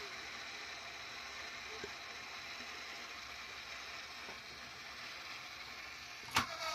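Small electric air pump running with a steady whirring hiss, with one knock near the end.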